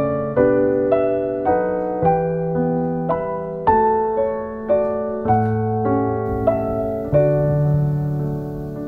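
Background music: solo piano playing a slow, gentle melody, a new note or chord struck about every half second and left to ring.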